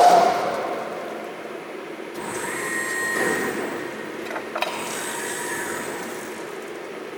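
Safan SMK servo press brake running through a cycle: steady machine noise, a sharp sound at the start, a motor whine in the middle and a click about four and a half seconds in.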